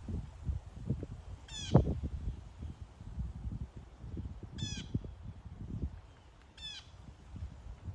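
An eagle calling three times, each call a short high-pitched chittering run of rapid notes. A low rumble, probably wind or handling on the microphone, runs underneath, with one sharp thump near the first call.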